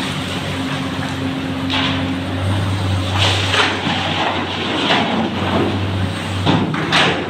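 Diesel engines of an excavator and a dump truck running steadily in a rock tunnel with a low drone, while the excavator loads muck. Several short, harsh bursts of scraping and clatter break in, loudest near the end.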